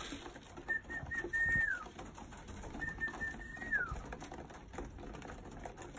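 Racing pigeons pecking barley from a wooden trough feeder, soft scattered taps, while a thin high call sounds twice, each time a few short notes and a longer note that falls away at the end.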